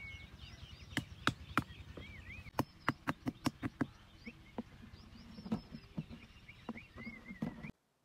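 Hammer knocking a small wooden stake into the soil: a string of sharp, irregular knocks, at times two or three a second. Birds chirp in the background, and the sound cuts off suddenly near the end.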